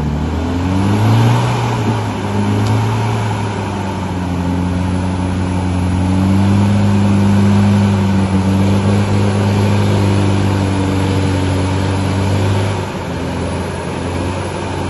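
A Toyota 4x4's engine revs up sharply and is then held at high, steady revs under heavy load as the vehicle grinds up a steep, muddy slope, easing off briefly near the end.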